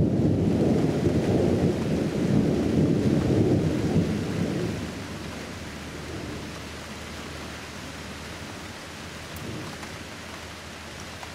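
Rolling rumble of thunder that dies away about halfway through, leaving the steady hiss of rain.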